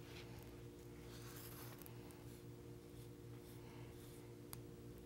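Faint, intermittent rubbing and smearing of wet paper mache being pressed by hand into the gaps around a foam antler-mount form, over a steady low electrical hum. A single sharp click comes near the end.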